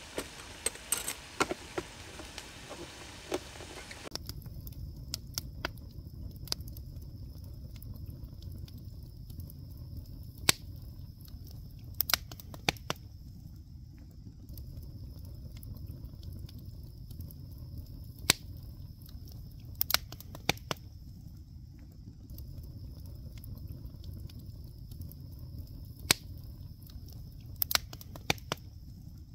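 Wood campfire burning: a low steady rumble with sharp crackles and pops at irregular intervals.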